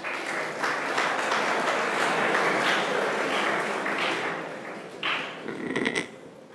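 Audience applauding, tailing off about four seconds in. Near the end come a few knocks and rubbing sounds from the lectern microphone being handled.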